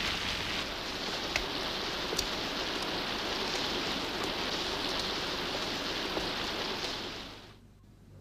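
Steady rain falling, with a few faint sharp drop ticks; the rain fades out shortly before the end.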